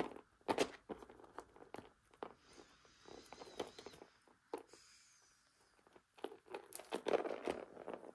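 Light handling noises of jewelry on a plastic tray: scattered soft taps, clinks and rustles as metal chain necklaces are set down and picked up, busiest near the end.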